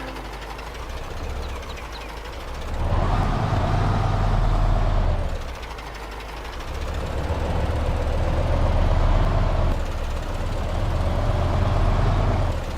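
Radio-controlled model construction machine working: a low engine-like drone with a whine that bends up and down. It swells and falls back three times, each spell lasting about two to three seconds.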